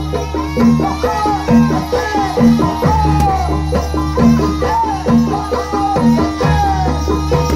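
Traditional Indonesian folk-dance music from a percussion ensemble, playing a repeating beat about once a second with a short falling melody over it.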